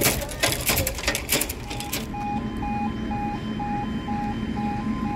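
Level crossing warning alarm starting up about two seconds in, beeping steadily about two and a half times a second, with a second, higher tone joining in near the end. Before it starts there is a clatter of sharp clicks.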